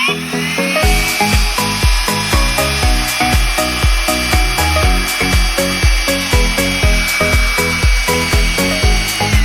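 Medion MD 18085 cordless vacuum cleaner's motor running with a steady high whine. It spins up at the start and cuts off near the end, on its repaired 6S lithium-ion battery pack. Background music with a steady beat plays underneath.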